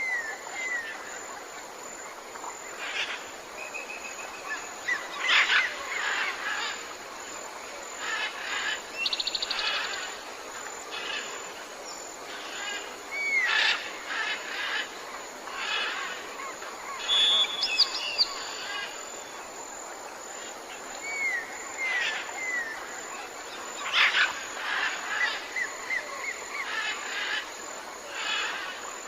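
Several birds calling, with sharp chirps every few seconds, short curving whistles and a few brief buzzy trills, over a faint steady hiss.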